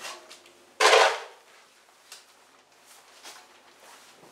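Plastic snow shovel scraping and scooping snow off a concrete floor: one loud scrape about a second in, then a few faint knocks.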